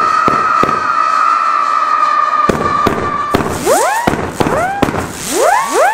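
WECO Night Howler firework battery firing howler shots. A steady whistle holds for about the first three seconds over scattered sharp pops. Then new shots launch in quick groups, each with several whistles rising steeply in pitch.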